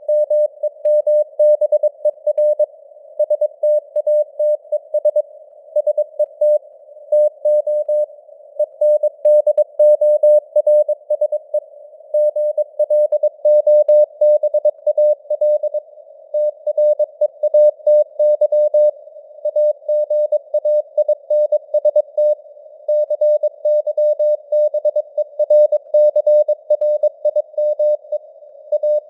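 Morse code at 22 words per minute: a single CW tone of about 600 Hz keyed rapidly on and off in dots and dashes. It sits in a narrow band of simulated radio noise, and its strength drifts up and down with fading (QSB).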